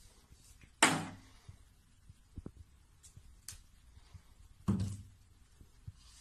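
Plastic toiletry bottles knocked over by a cat's paw on a tiled bathroom ledge: two hollow thunks about four seconds apart, with faint taps and clicks between.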